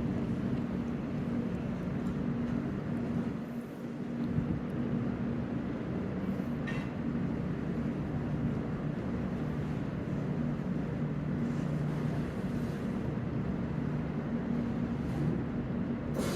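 Steady low mechanical drone of ship machinery, with a few steady low tones running under a wider rumble. It dips briefly about four seconds in, and there is a faint click about halfway through.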